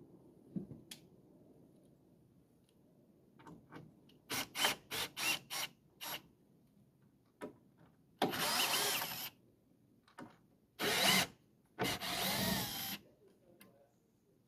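Cordless drill backing screws out of wooden deck panels: first a quick string of about five short trigger bursts, then three longer runs, its motor whine rising and falling in pitch.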